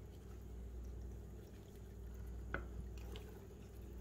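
Faint wet handling sounds of a raw seasoned whole chicken being opened up by hand, over a steady low hum, with one sharp click about two and a half seconds in.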